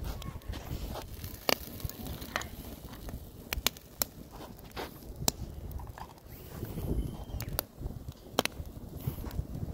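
Open wood fire crackling under a grill, with sharp irregular pops over a low steady rumble.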